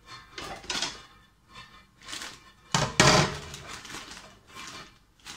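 Kitchen handling sounds: a plastic bag of chillies rustling and a few knocks at the sink, the loudest a sharp clatter about three seconds in as a cutting board is set down.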